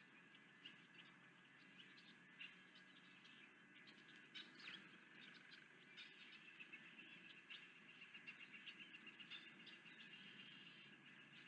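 Faint bird chirps: scattered short high notes, then a quicker run of chirps through the second half, over a steady low background noise.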